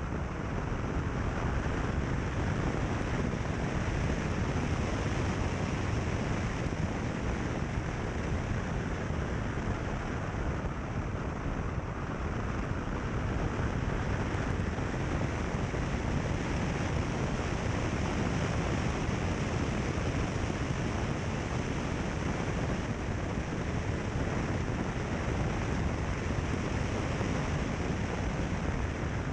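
Steady rushing noise of a car driving along a gravel road, from the tyres on gravel and from wind, with no clear engine note standing out.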